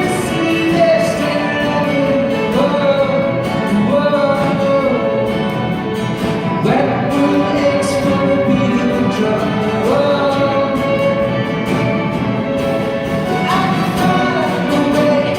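Male vocalist singing a pop song, backed by a string orchestra playing a sustained arrangement, performed live.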